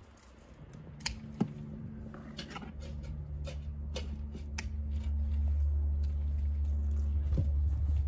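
Garden pruning shears snipping dry plant stems several times in the first few seconds, with twigs rustling as they are handled. Underneath, a low steady hum grows louder and is the loudest sound in the second half.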